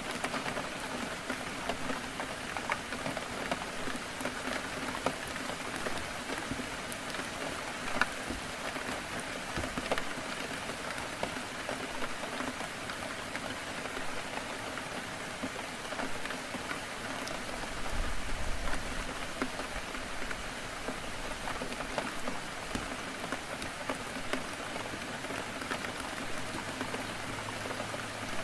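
Heavy rain beating steadily on window glass, a continuous hiss dotted with sharp ticks of single drops. About two-thirds of the way through there is a brief low rumble.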